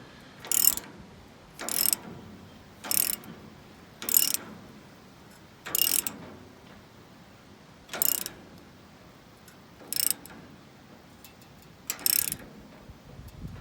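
RIVET-EZE riveting tool being turned to peen a new head onto a sickle knife section rivet, giving a sharp metallic click with each stroke: eight clicks, about a second apart at first, then about two seconds apart.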